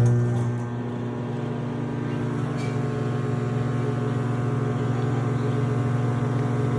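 Microwave oven running after being started: a steady electrical hum with a buzzing overtone, holding even throughout.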